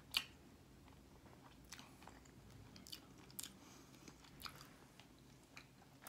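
A man chewing a mouthful of Filet-O-Fish sandwich: quiet, irregular wet mouth clicks, the sharpest just after the start.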